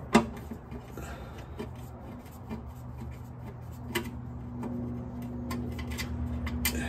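Scattered sharp metallic ticks and clicks of hand tools working the transmission pan bolts, the loudest just after the start, over a steady low hum.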